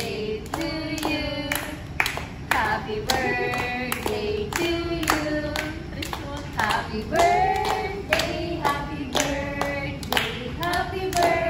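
A group of people singing together, with steady rhythmic hand-clapping at about two claps a second: a birthday song being sung and clapped along to.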